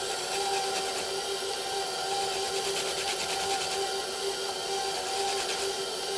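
Stand mixer running steadily with a constant motor hum, beating eggs into creamed butter and sugar, while citrus peel is scraped against a zester in repeated short rasping strokes.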